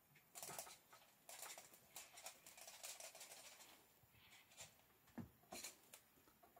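Faint scratching and light tapping of a Bengal cat's paws and claws on a wooden cat tower as it climbs, with a couple of short sharp clicks about five seconds in.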